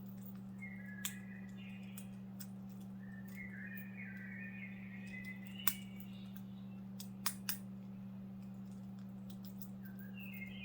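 Pet bird chirping and warbling softly in a few short phrases, mixed with scattered sharp clicks and taps. The loudest click comes a little past the middle, and two more follow close together shortly after.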